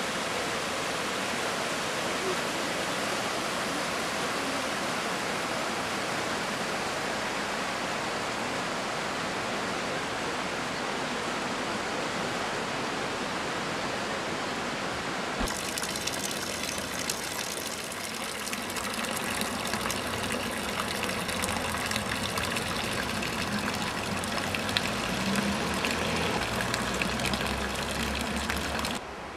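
Steady rushing of a mountain river over stones. About halfway through, a cut brings a different outdoor sound of many small clicks and rustles, with a low rumble near the end.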